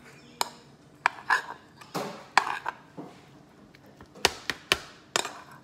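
A metal spoon scraping scrambled eggs out of a frying pan onto a plastic plate: a run of short scrapes and clinks, then three sharp metal taps near the end.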